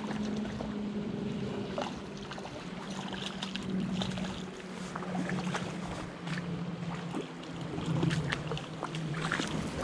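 Hooked brown trout splashing at the surface of a shallow creek over the sound of running water, while a Pflueger President spinning reel is cranked with a steady low hum and many small clicks.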